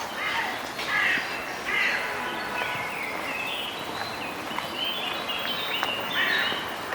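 Birds calling in a park: a few rough, harsh calls in the first two seconds and again near the end, with thinner high twittering song between them.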